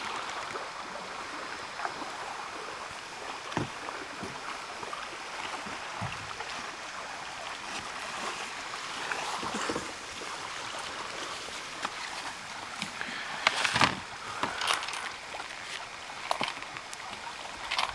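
Steady outdoor hiss with scattered knocks, clicks and scrapes as plastic kayaks are handled on a rocky shore. The loudest cluster of knocks comes about two thirds of the way through.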